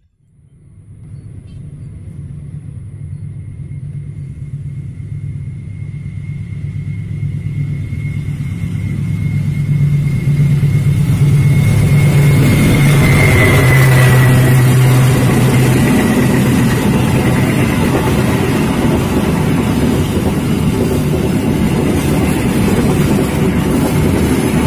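Diesel locomotive hauling a passenger train approaches and passes: its engine note builds from about a second in, with a steady high whine above it. From about twelve seconds on, the rolling rumble of the coaches on the rails takes over at full loudness.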